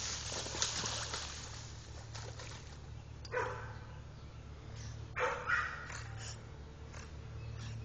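River otters calling: three short calls, one about three seconds in and two close together about five seconds in.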